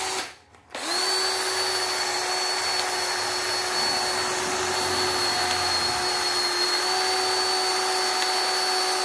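Motor of a Makita cordless threaded-rod cutter running with a steady whine: a short burst right at the start, a brief stop, then continuous running at an even pitch.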